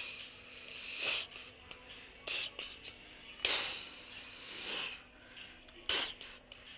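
Several short, hissy breath sounds close to the microphone at irregular gaps, with a faint steady hum underneath.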